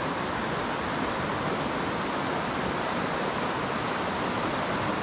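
Swollen creek running high and fast in flood, a steady rushing of water through riffles over rocks.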